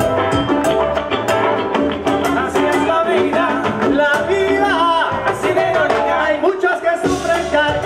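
Live salsa band playing, with congas, drum kit and keyboard driving a steady rhythm and voices singing over it.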